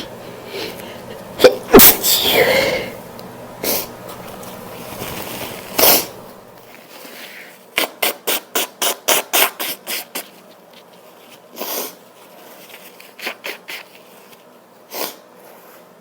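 A woman sneezes loudly about one and a half seconds in, a double burst that trails off into a drawn-out voiced tail. It is followed by scattered short, sharp breaths, with a quick run of about ten of them near the middle.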